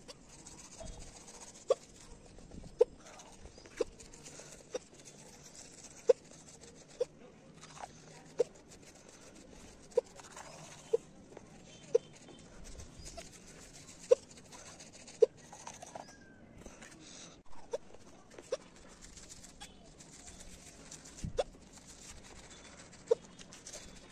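A woman hiccuping over and over, short sharp hiccups roughly once a second at an uneven pace: a persistent bout of hiccups.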